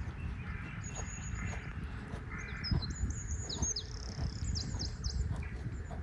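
Wild birds chirping: short high notes and quick downward-sweeping calls, busiest in the middle, over a steady low outdoor rumble.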